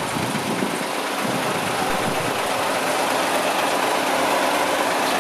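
Hino Victor 500 concrete mixer truck's diesel engine running steadily, slowly getting a little louder.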